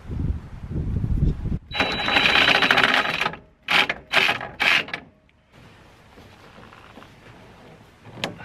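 Reciprocating saw cutting through PVC pipe: one run of about a second and a half with a high whine in it, then three short bursts as the cut finishes.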